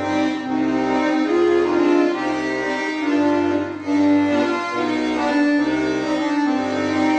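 Tula bayan (Russian button accordion) playing a slow folk melody over sustained chords, the bass notes changing about once a second.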